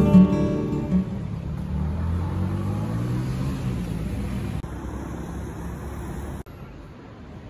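Background music fading out, then the steady low rumble of a motor vehicle with road noise, dropping abruptly in level twice near the end.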